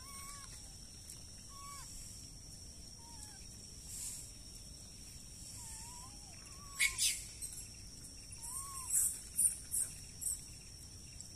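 Forest ambience: a steady high whine, with soft whistled calls that rise and fall every second or two. From about seven seconds in there is a run of sharp, high chirps.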